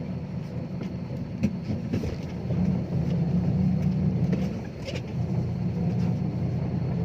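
Six-wheel dump truck's diesel engine running steadily, louder for a couple of seconds from about two and a half seconds in before easing back, with a sharp click about a second and a half in.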